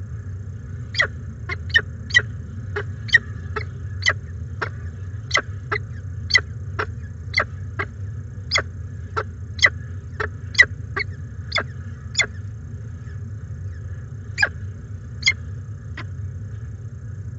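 Peregrine falcons feeding at the nest: a quick, irregular series of short, sharp ticks, about two a second, over a steady low hum. The ticks stop about a second before the end.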